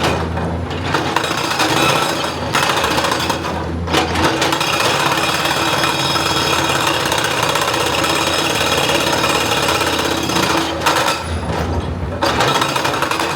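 Excavator at work, a loud, continuous rapid mechanical hammering over its engine, with a few brief dips in the racket.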